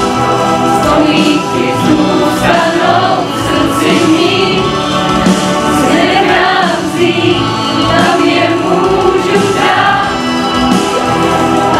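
Music with a choir singing, sustained and continuous.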